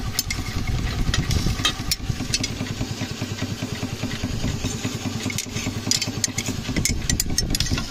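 Steady, fast-pulsing rumble of the model steam traction engine's blower drawing draft through the coal fire to burn it down. Scattered clicks and scrapes come from a poker stirring the coals on the firebox grate.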